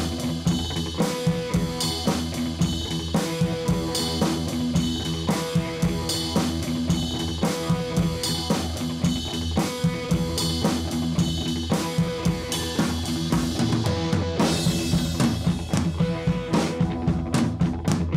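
Background music with a drum kit playing a steady beat.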